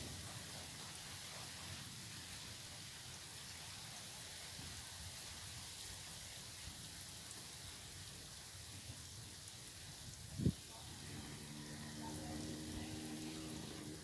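Faint steady outdoor hiss on a riverbank. One sharp knock comes about ten and a half seconds in, and then a low engine hum with several steady tones starts near the end.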